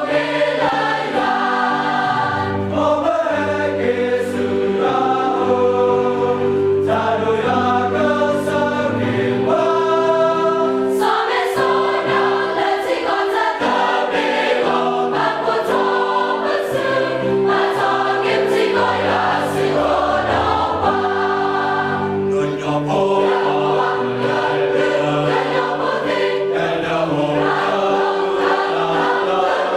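A mixed choir singing in several parts in harmony, with held chords and lower voices moving beneath a sustained upper note.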